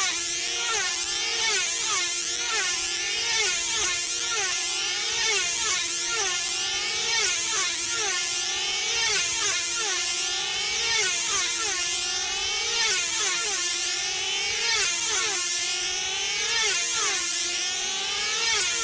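Several F2C team-racing control-line model aircraft circling at full speed, their small 2.5 cc diesel engines screaming at high revs. Each engine's pitch rises and falls as the model sweeps past, about once a second, with several models overlapping.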